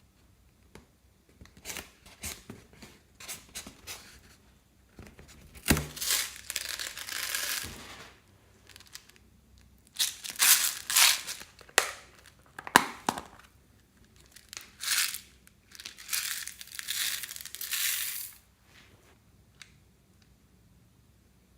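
Slime mixed with foam beads (floam) being squeezed and kneaded by hand, giving crunchy crackling and popping in several spells of one to three seconds with short pauses between.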